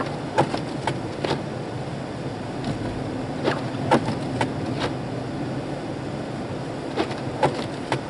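Inside a car on a snowy highway: a steady hum of engine and tyres, with clusters of short clicks and knocks about every three and a half seconds as the snow-caked windshield wipers sweep across the glass.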